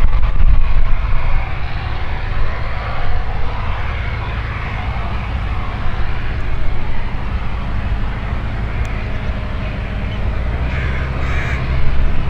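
Porto Aviation Risen's Rotax 912 iS four-cylinder engine and propeller running steadily at taxi power. It is louder in the first second or so and again just before the end, as the aircraft turns toward the listener.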